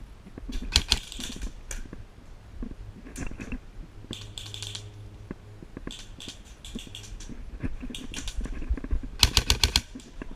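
Airsoft guns firing short full-auto bursts of rapid, evenly spaced clicks, about a dozen shots a second. There are several bursts, and the loudest comes near the end.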